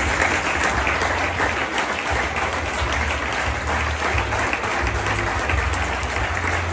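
Audience applauding, a dense, steady clapping at the end of a stage sketch.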